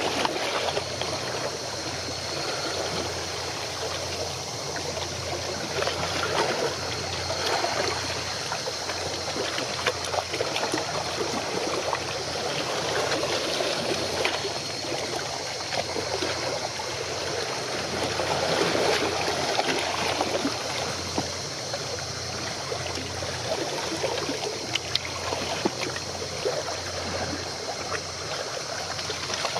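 Water lapping and trickling close by, a steady fluctuating wash with scattered small splashes, over a low hum.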